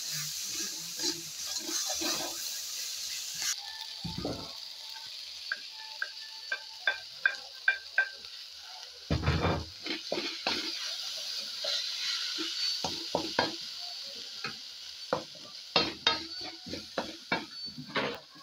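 Diced carrots, onions and green peppers sizzling in oil in a frying pan while a wooden spatula stirs them, with many sharp clicks and scrapes of the spatula against the pan. A brief dull thud comes about nine seconds in.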